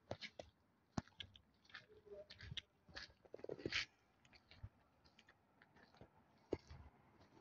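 Near silence broken by faint, irregular clicks and taps, the sharpest about a second in and again near the end.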